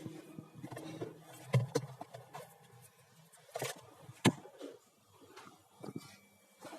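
Scattered knocks and clatter of things being handled, with a sharp knock about four seconds in the loudest.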